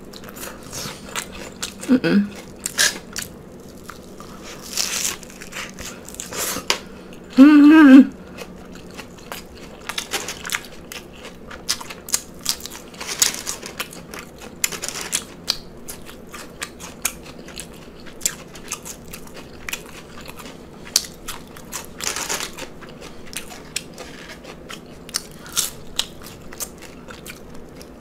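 Close-miked chewing of food: irregular crunches, bites and wet mouth clicks with the microphone right at the mouth. A short voiced sound comes about two seconds in, and a brief, louder hummed vocal sound comes about seven seconds in.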